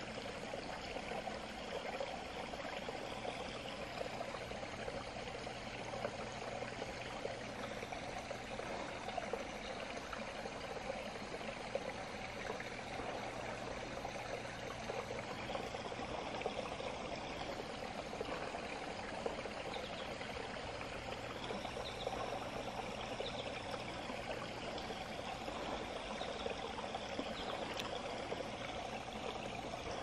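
Small stream running steadily, a continuous wash of flowing water.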